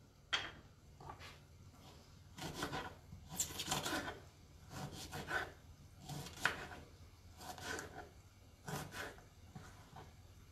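Small kitchen knife cutting and trimming a raw artichoke on a wooden cutting board: short, irregular rasping strokes, roughly one a second, with the blade now and then tapping the board.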